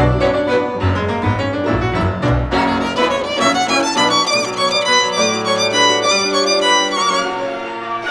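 Instrumental music led by violin over bowed strings, with a stretch of quick, high violin notes with vibrato in the middle.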